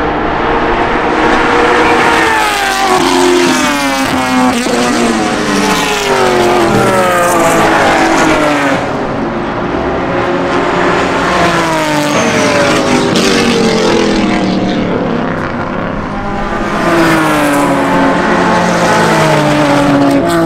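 Several time-attack race cars passing at speed, one after another. Each engine note falls in pitch as the car goes by.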